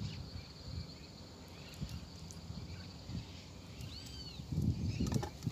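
Soft rustles and low knocks from a fishing line and a small fish being handled close to the microphone, over faint outdoor ambience with a steady high buzz. A short high chirp comes about four seconds in, and the handling gets louder near the end.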